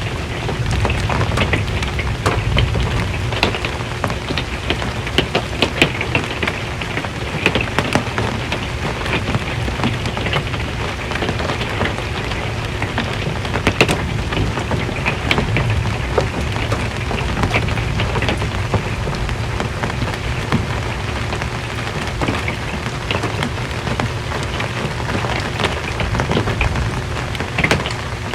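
Rain on an RV's metal roof: a dense, steady patter of drop ticks with a low rumble underneath.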